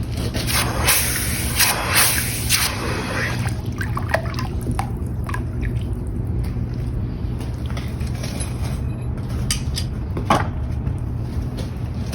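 Hot forged iron quenched in water: a loud hiss of steam for the first few seconds, settling into quieter bubbling and dripping. A steady low hum runs underneath, and there is a sharp click about ten seconds in.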